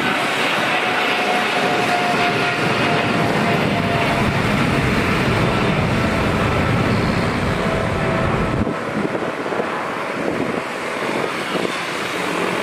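Boeing 777's twin turbofan engines at takeoff power as the jet climbs out: a steady jet roar with a faint whine in it. About nine seconds in, the deep rumble drops away and it gets a little quieter.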